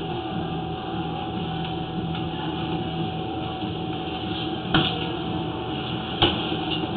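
Steady machine hum with a thin held tone, broken by two sharp knocks about a second and a half apart.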